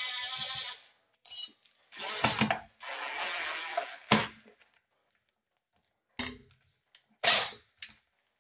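Cordless drill driving a screw through a blind bracket into a window frame, running in short spurts: once at the start and again for about two seconds a couple of seconds in. A sharp click follows, and a few more clicks and knocks come near the end.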